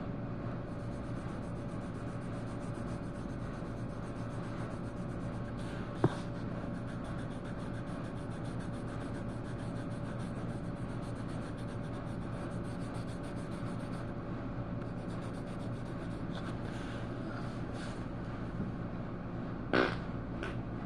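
Pencil or marker rubbing on paper while colouring, over a steady low electrical hum, with a sharp click about six seconds in and a short louder scrape near the end.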